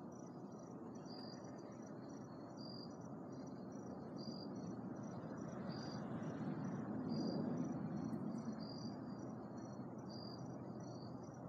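An insect chirping in a steady rhythm, one short high chirp about every second and a half, over a steady low rushing background that swells briefly about two-thirds of the way through.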